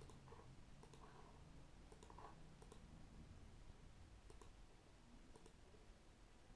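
Near silence with a few faint, scattered computer mouse clicks.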